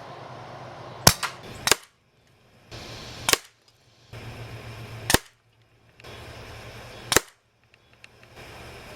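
Umarex Notos .22 air rifle firing JSB Match Exact Jumbo pellets: about five sharp shots, one to two seconds apart, over a low steady hum.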